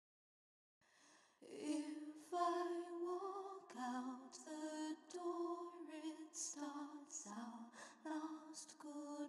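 A woman's voice singing softly, a slow melody of held notes with breathy consonants, starting about a second and a half in after a moment of dead silence.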